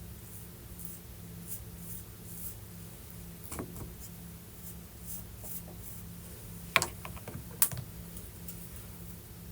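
A few sharp snips of scissors cutting loose strands and frizz from hair, the loudest two close together near the end, over a steady low hum.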